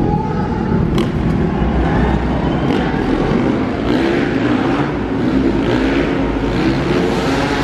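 Several dirt bike engines running and revving, their pitch rising and falling as the bikes ride around and take the jumps.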